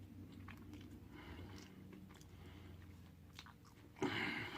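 A person chewing pizza close to the microphone, with soft wet mouth clicks and a louder chewing noise about four seconds in.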